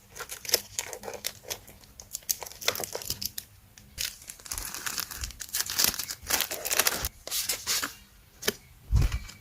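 Paper and plastic packaging being handled: irregular crinkling and rustling with tearing sounds, in quick uneven bursts.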